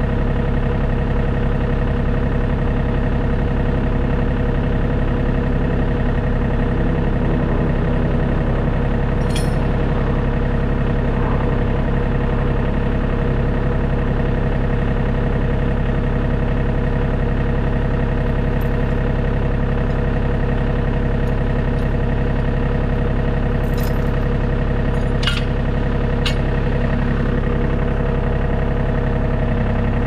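Tractor engine idling steadily, with a few short clicks about nine seconds in and again around 25 to 26 seconds.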